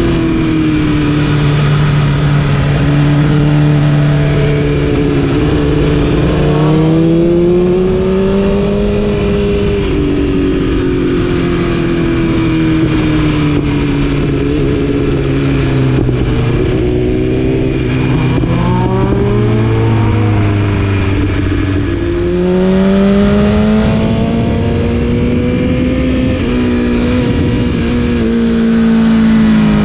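2020 BMW S1000RR's inline-four engine through an Akrapovič exhaust, ridden under load with the engine note rising and falling slowly as the bike speeds up and slows down. The pitch sinks for several seconds, then jumps sharply a little over twenty seconds in and climbs again.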